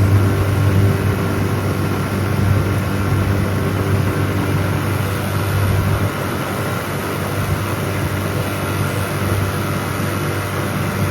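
A boat motor running steadily under way, a continuous low engine hum under a steady hiss.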